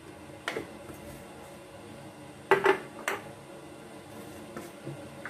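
A small metal spoon and spice containers clinking against each other and the pot as spices are measured out: one tap about half a second in, a louder cluster of clinks about two and a half seconds in, and a few fainter taps near the end.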